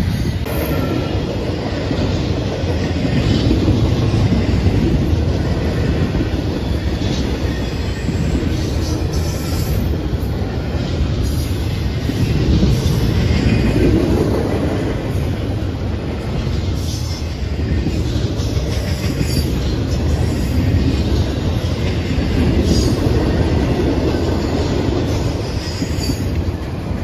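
Double-stack intermodal container cars of a freight train rolling past close by. The steel wheels make a continuous heavy rumble on the rails that swells and eases as the cars go by, with scattered clacks over the rail joints.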